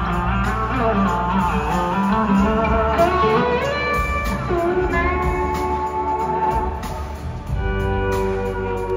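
Live blues-rock band playing, led by an electric slide guitar whose notes glide up and down over drums and bass. Toward the end the band settles into steadier held notes.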